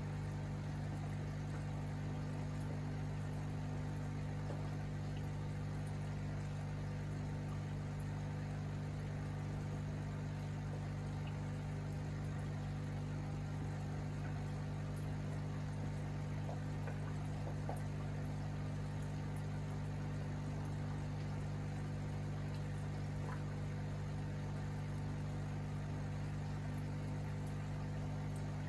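Steady low electric hum of aquarium pumps, with faint water bubbling from the tank's aeration.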